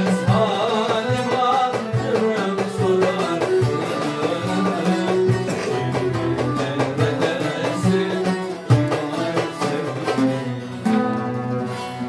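Turkish folk ensemble playing: bağlama and oud plucked, violin bowed, and a hand drum keeping a steady beat.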